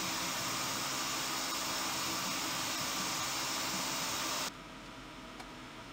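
A CNC mill's air blast hissing steadily at the end mill while it cuts chamfers on a hardened steel knife blade. The hiss cuts off suddenly about four and a half seconds in, leaving a lower steady machine hum.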